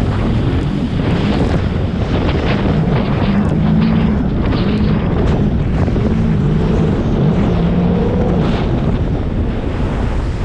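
Sea-Doo GTX jet ski running under way, its engine drone rising and falling in pitch as the throttle changes, with heavy wind buffeting on the microphone and the hiss of water spray.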